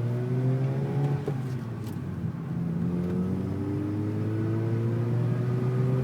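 Mazda RX-8's two-rotor rotary engine with no catalytic converter, driving and accelerating. Its pitch rises, falls back about a second in, then climbs steadily again.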